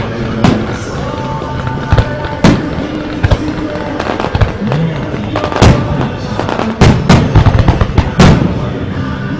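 Aerial firework shells bursting in a rapid, uneven series of sharp bangs, the loudest coming in the second half, over music with crowd voices.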